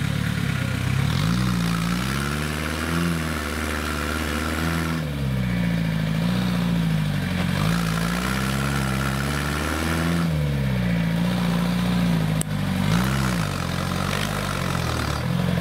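Mini tractor engine working, its pitch repeatedly rising and dropping back every couple of seconds as the throttle is pushed and eased. A single sharp click about twelve seconds in.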